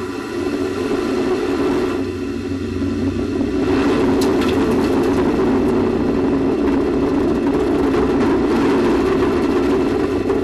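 Space Shuttle Endeavour's rocket motors firing during ascent: a loud, steady, rumbling rush with a strong low band and faint steady tones above it.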